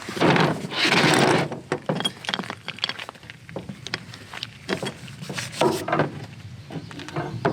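Compressed air hissing from an air chuck into a riding mower tire's inner tube during inflation, loudest in a burst over the first second and a half, followed by short clicks and rattles of the chuck and pliers being handled.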